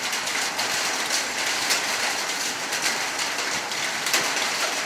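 Steady rain falling in a thunderstorm, with irregular sharp taps of drops hitting a nearby surface.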